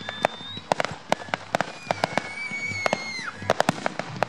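Fireworks bursting overhead: a rapid, irregular run of sharp pops and bangs from the shells' crackling stars. A high whistle is held through the middle and drops in pitch as it ends.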